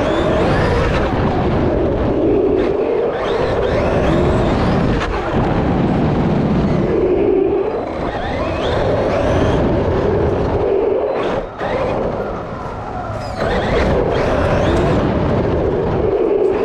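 Traxxas Maxx RC monster truck heard from its on-board camera: the electric motor and drivetrain whine, rising and falling with the throttle, over the noise of the tyres rolling on concrete. The sound drops off briefly about eleven and a half seconds in, then picks up again.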